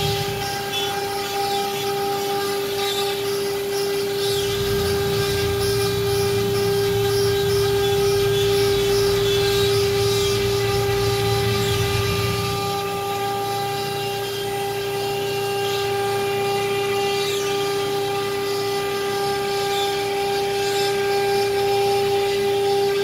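CNC router spindle running with a steady high whine while routing a board. A lower rumble joins from about five to twelve seconds in.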